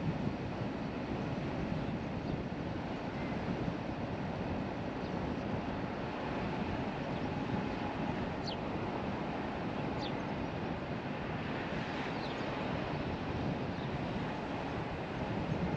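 Car driving on a paved country lane: steady road and wind noise. A few faint, short high chirps come through around the middle.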